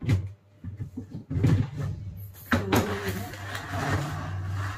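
White plastic refrigerator crisper drawer being pulled out and handled: a knock at the start, then plastic scraping and rattling that turns continuous about halfway through.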